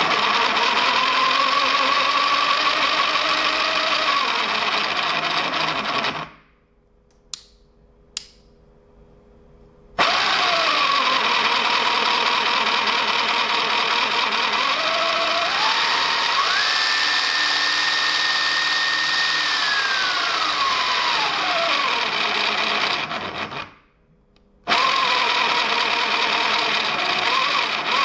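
A 775 DC motor driving a 3D-printed gearbox with herringbone gears, freshly greased, run in three spells on a speed controller. The gear whine steps up to a high pitch in the middle run, holds, then glides down before cutting off. It still runs roughly, which the builder puts down to the gears meshing with too little clearance.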